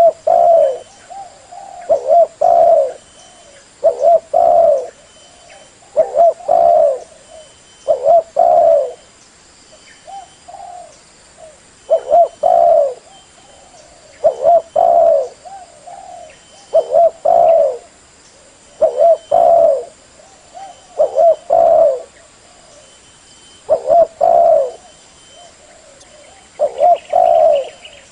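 Spotted dove cooing over and over, a phrase of a few low coos about every two seconds: a call recording used to lure the birds.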